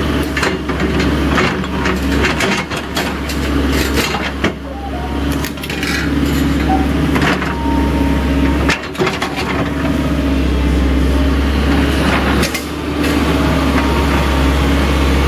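Volvo EC140 excavator's diesel engine running steadily under hydraulic work. Repeated metallic clanks and rattles come as the bucket and thumb handle old wire fencing, and they are most frequent in the first half.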